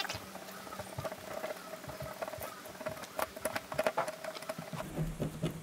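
Knife cutting along a flathead's back while it is filleted, a quiet run of small irregular clicks and scratches as the blade works through the flesh.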